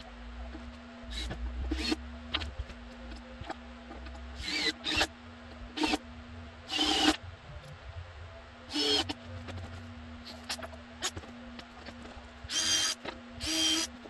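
Cordless drill/driver run in several short bursts with a whine, the loudest about seven seconds in.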